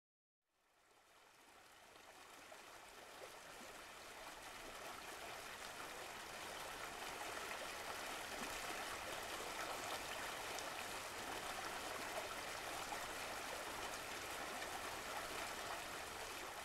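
Steady rushing noise like a running stream, fading in from silence over the first few seconds.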